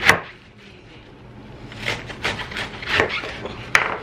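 Freshly sharpened kitchen knife chopping romaine lettuce on a wooden slab cutting board. There is one sharp knock of the blade on the wood right at the start, then a quick run of cuts from about two seconds in.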